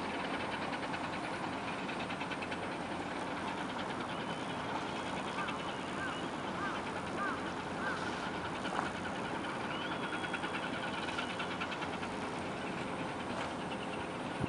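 Steady engine drone over water, with a bird calling about five times in quick succession about five seconds in.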